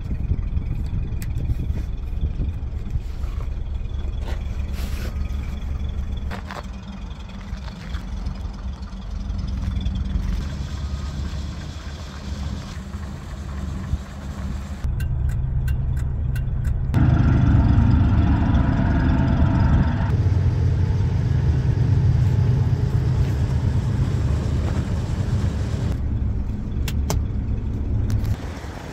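Toyota FJ40 Land Cruiser's 2F inline-six petrol engine idling steadily. It grows louder and fuller for a few seconds past the middle, then drops back near the end.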